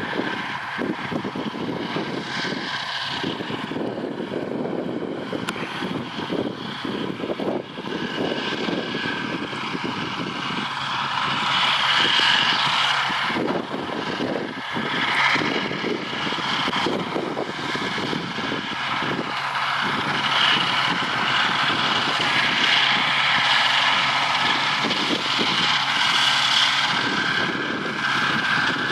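Zetor 9641 tractor's diesel engine running steadily under load while its Vicon mower cuts hay. It grows louder about a third of the way in as the tractor comes closer.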